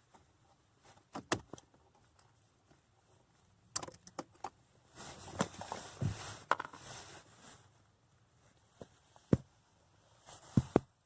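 Handling sounds at the steering column while the ignition switch is worked on: scattered sharp clicks and knocks, with a few seconds of rattling jingle in the middle.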